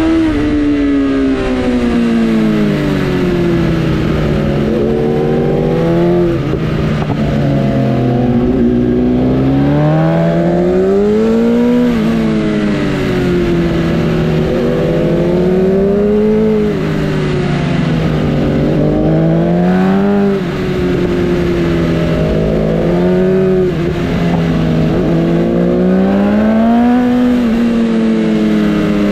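Sportbike engine running hard, its pitch rising and falling again and again every two to four seconds as the throttle opens and closes.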